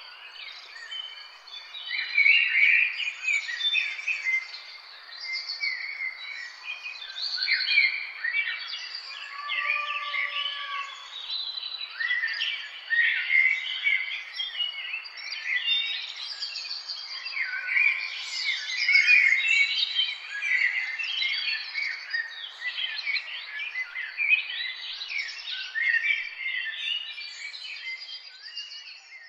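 Chorus of several songbirds singing and calling over one another: quick chirps and warbled phrases overlapping densely, with a few lower whistled notes.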